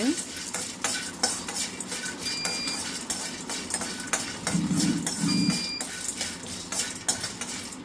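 A metal utensil stirring and scraping green cardamom pods around a steel pan as they dry-roast, making an irregular run of clinks and scrapes.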